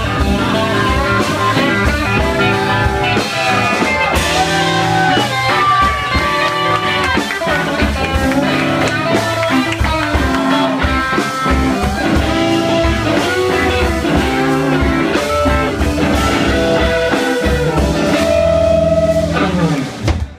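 Live blues-rock band playing: an electric lead guitar bends and slides notes over bass and a drum kit. The band breaks off abruptly right at the end.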